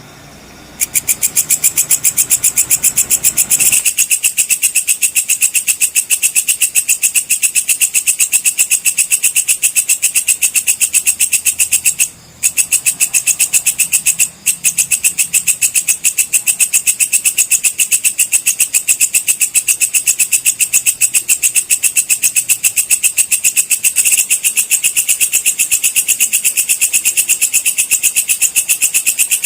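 Walang kecek (belalang kecek) insect singing: a loud, fast, even train of high clicking chirps that starts about a second in and runs on steadily, breaking off briefly twice midway.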